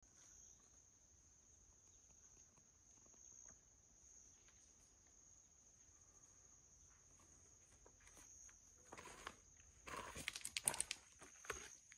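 Faint, steady, high-pitched insect buzz in the woods. From about nine seconds in come a run of loud footsteps on gravel and stone steps.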